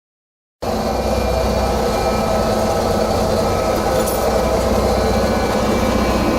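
Silence, then an engine running steadily cuts in abruptly under a second in, with a constant low hum and an even pitch.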